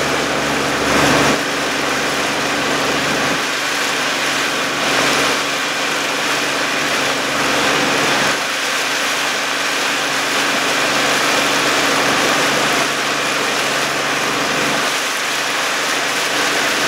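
Motorboat engine running steadily at an even pace, a constant low hum, over a steady rush of water.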